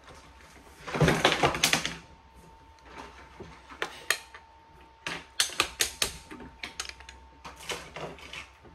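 Plastic toy building bricks clicking and clattering against each other and the countertop: a dense rattle of clicks about a second in, then scattered clicks in small groups as bricks are handled and pressed together.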